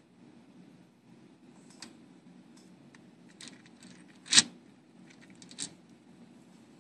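A faint low hum with a few small clicks and taps, the loudest a single sharp tap about four and a half seconds in.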